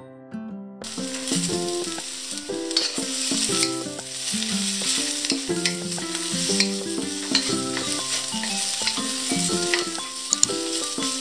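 Vegetables sizzling as they are stir-fried in a hot wok, starting about a second in, with the scrape and tap of a wooden spatula tossing them. Background music with a melody plays throughout.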